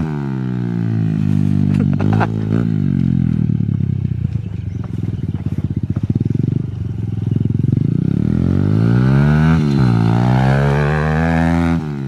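Small pit bike's single-cylinder four-stroke engine being ridden: the revs fall at first, settle into a low, pulsing chug through the middle, then climb again near the end. Two sharp knocks come about two seconds in.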